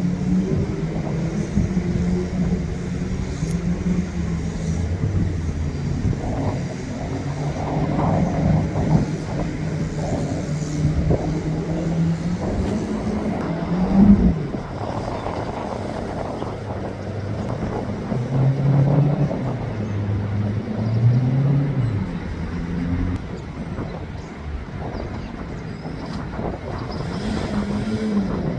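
Small jet boat's engine running on the river, its pitch rising and falling several times as the throttle is opened and eased off while it comes back in.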